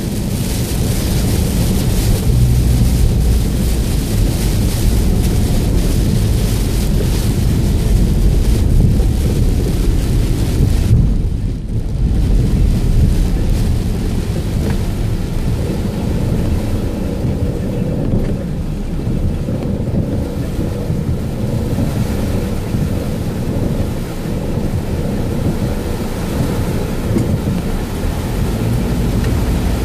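Heavy rain beating on a moving car's windshield and roof, over a steady low rumble from the car and its tyres on the wet road. The high hiss of the rain drops away briefly about eleven seconds in, then returns.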